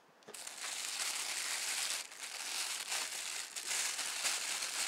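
Clear plastic bag crinkling as hands unwrap a camera body from it, a dense rustle that starts just after the beginning and goes on with small swells and dips.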